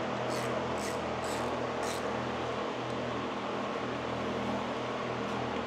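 Steady background hum with about four faint, light clicks in the first two seconds, from a hand ratchet and socket being worked on an engine's timing-chain parts.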